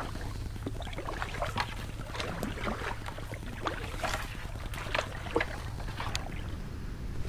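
Kayak on the water: irregular small splashes, drips and knocks of the paddle and hull, over a steady low rumble of wind on the microphone.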